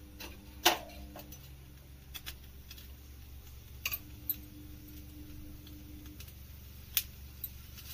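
A few light, scattered clicks and taps as oiled aubergines are set on a wire roasting grill over a gas burner, over a faint steady hum.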